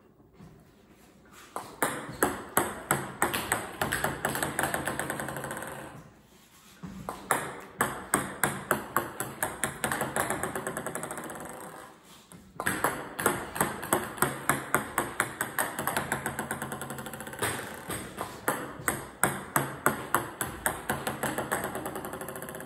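Table tennis balls clicking sharply on the table and paddle, about three clicks a second, as backspin serves are hit one after another. The clicks come in three long runs, with brief lulls about 6 s and 12 s in.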